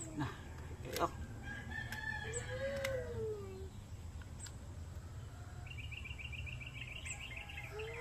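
A rooster crowing: one rising-and-falling call about two and a half seconds in. A rapid high bird trill follows near the end, and there is a sharp click about a second in.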